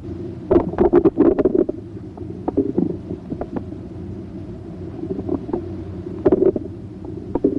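Bowel sounds heard through a stethoscope's diaphragm on the right lower quadrant of the abdomen: irregular clicks and gurgles in clusters, busiest from about half a second to two seconds in and again around six seconds in, over a steady low hum.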